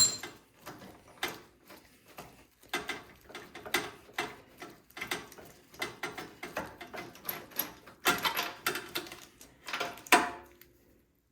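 Spark plug being loosened and taken out of a snowblower engine: irregular bursts of metal clicks and clatter from the wrench and socket, stopping near the end. The plug comes out fouled and wet.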